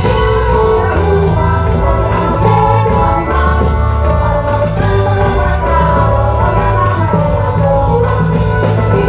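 Live band playing a forró song with singing over a steady bass line and fast, even percussion.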